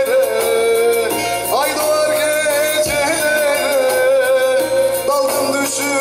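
A man singing a Turkish Teke-region folk song (türkü) in long, held, ornamented notes, accompanied by a bağlama (long-necked saz).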